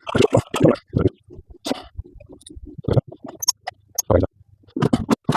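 Irregular knocks, clicks and scrapes of tools and small metal parts being worked by hand on the Hitachi air-suspension compressor's electric motor while trying to split its casing.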